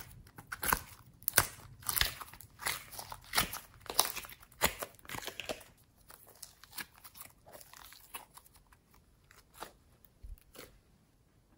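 Thick slime crackling and popping as hands squeeze it and peel it out of a plastic mold: quick sharp crackles for the first half, thinning out to scattered faint pops after.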